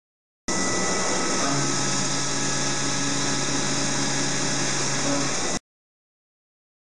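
Mikron HPM 600 HD machining centre full-slot milling 16MnCr5 steel with a 16 mm four-flute carbide end mill held in a FAHRION CENTRO P precision collet chuck: a steady cutting hiss, with a steady low tone joining about a second after it starts. It begins about half a second in and cuts off abruptly.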